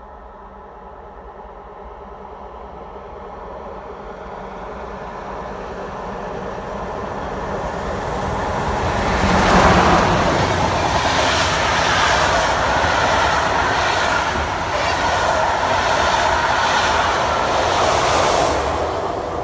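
A passenger train of vintage coaches, with a red DB electric locomotive at the rear, approaching and growing steadily louder for about ten seconds, then passing close with a loud, steady rush of wheels on rail and a regular clicking over the rail joints.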